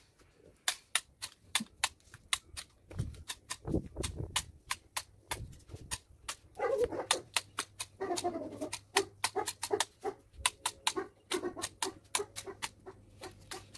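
Long-handled manual hedge shears snipping through leafy stems of a low border hedge, a steady run of sharp cutting clicks at about three a second. A few short whining pitched sounds come in around the middle.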